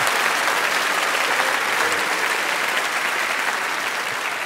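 Studio audience applauding, the clapping slowly dying down toward the end.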